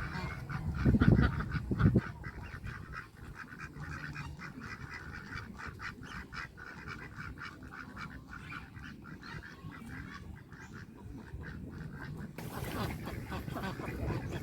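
Waterfowl calling: loud honks in the first two seconds, then the quieter chatter of a flock giving many short calls, with a fresh burst of calls about twelve seconds in.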